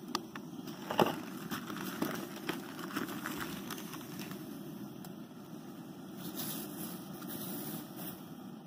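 A large pot of broth at a boil, bubbling and crackling as dry rice is poured in, over a steady low rushing. A few sharp clicks and knocks come in the first few seconds, the loudest about a second in.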